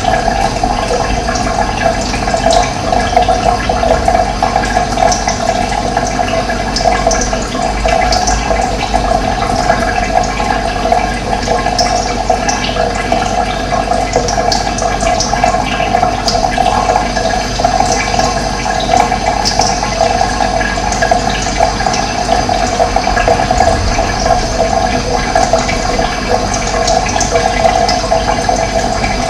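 Steady rushing of running water, with short high bird chirps scattered over it.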